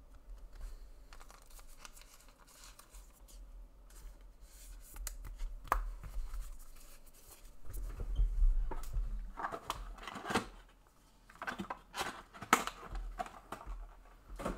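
Trading-card packaging being torn and cut open, with crinkling wrappers and scattered light clicks and scrapes from handling cards on a table.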